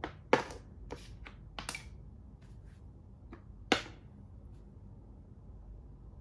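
Plastic Thai chess (makruk) pieces clacking on the board as they are picked up and set down: a run of about ten sharp clacks over the first four seconds. The loudest come about a third of a second in and just before four seconds.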